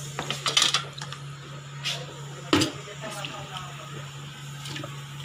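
Wet pieces of goat trotter knocking and clinking as they are put into a steel pressure cooker: a few separate knocks, the loudest about two and a half seconds in.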